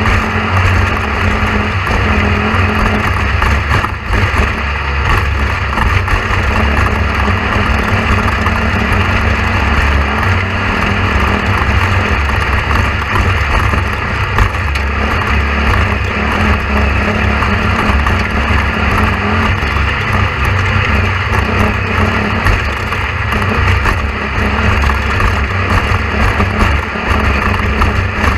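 A loud, steady mechanical rumble with a low hum, unchanging throughout.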